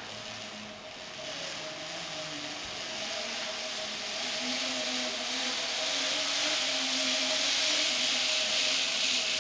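Zip line trolley's pulley wheels running along the cable: a steady whirring hiss with a faint whine, growing gradually louder as the rider comes closer.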